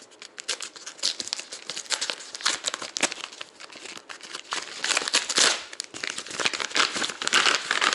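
Kraft paper mailer envelope being torn open and crumpled by hand: a dense, irregular run of paper crinkles and rips.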